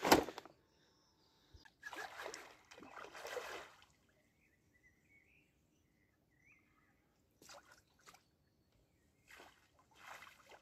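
Pond-side ambience: several short bursts of water splashing and sloshing in the shallows, with faint bird chirps in the quieter stretch in the middle.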